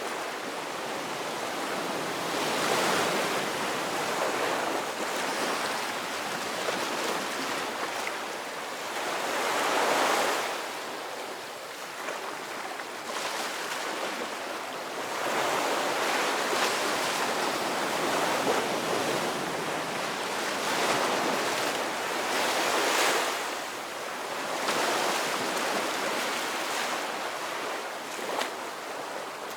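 Ocean surf: waves breaking and washing in, as a continuous rush that swells and falls back every few seconds.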